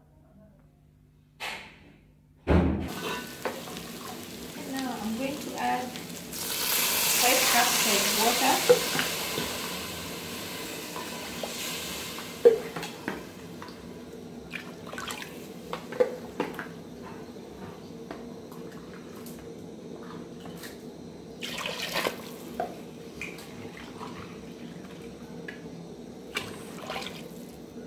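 Water poured into a metal cooking pot onto the spiced beef and tomato base for pilau: a rushing pour about six seconds in that lasts roughly four seconds, then a lower steady hiss with scattered clicks and knocks.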